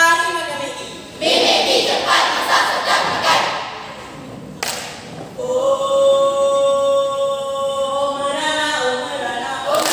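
A school choral speaking group performing bicara berirama: a rush of many voices together, a single sharp hit about halfway through, then the group holding a sung chord for about three seconds before voices come in again near the end.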